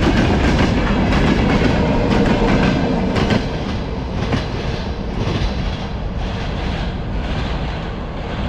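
Freight train wagons rolling past with a rumble and repeated wheel clicks. The last wagon passes about three seconds in; the sound drops suddenly, then the rumble and clicks fade as the train pulls away.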